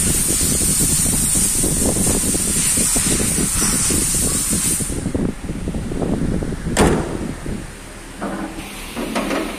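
A car's hood is slammed shut: one sharp bang a little over halfway through, the loudest sound here, with a few lighter knocks after it. Before the bang there is a steady hiss over low rustling that stops about halfway.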